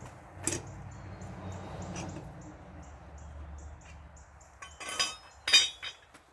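A car jack being worked to lift the vehicle: light metallic clicks over a low rumble, then two loud metallic clanks about five seconds in.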